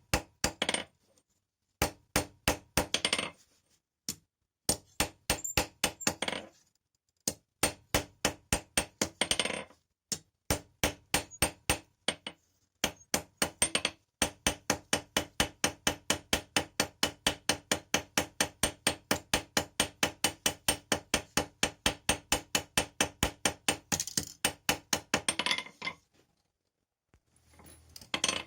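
Hammer blows on hot steel at the anvil, hand-forging an awl: runs of steady, even strikes at about three to four a second, broken by short pauses. The longest run comes in the second half, and a ring carries through the blows.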